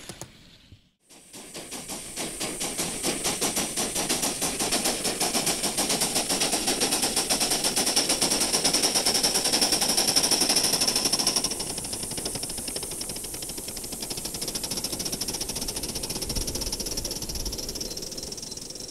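Gauge 1 live-steam model of a class 52 steam locomotive running, its exhaust chuffing in a fast, even rhythm over a high hiss of steam. The chuffing starts after a moment of silence and builds over a few seconds. About eleven seconds in it drops abruptly to quieter beats and hiss.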